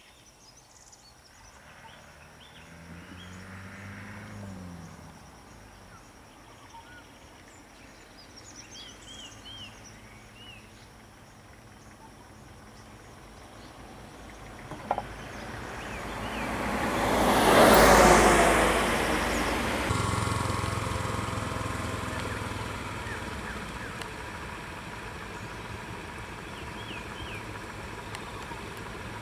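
Motor vehicle driving up close, its noise swelling to a peak about two thirds of the way through, then settling into a steady engine idle. A few birds chirp faintly in the quieter first half.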